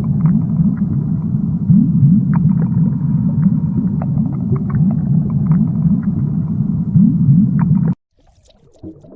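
Low rumbling underwater sound, dense with short rising chirps and scattered sharp clicks, offered as the sound of a shark; it cuts off suddenly about eight seconds in.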